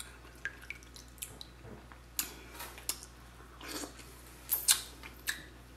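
Wet eating sounds: scattered short squishes, smacks and clicks of someone eating sauce-coated seafood.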